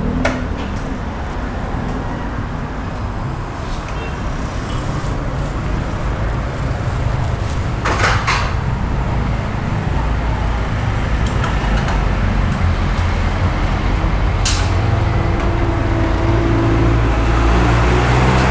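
Steady street-traffic rumble with a motor vehicle engine running, heavier in the second half, and a few sharp metallic clinks, the clearest about eight seconds in and about fourteen seconds in.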